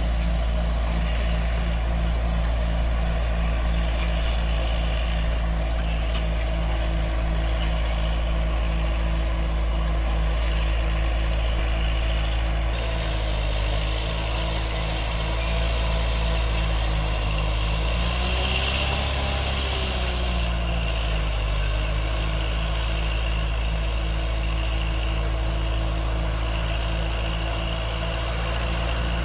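Heavy diesel engine of an earthmoving machine running steadily, rising briefly in pitch and falling back about two-thirds of the way through.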